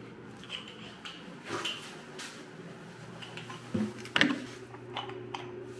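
Scattered light clicks and knocks of a metal cartridge puller tool being handled and set up, the loudest about four seconds in, over a steady low hum.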